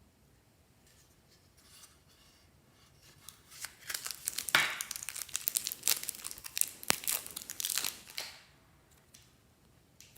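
Crinkling and tearing of thin packaging, a dense run of sharp crackles lasting several seconds that starts about a third of the way in and stops abruptly.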